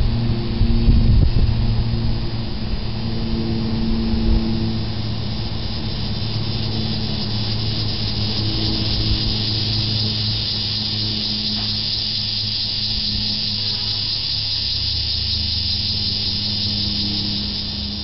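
Annual cicada calling: a steady, high-pitched buzzing drone, with a low steady hum underneath.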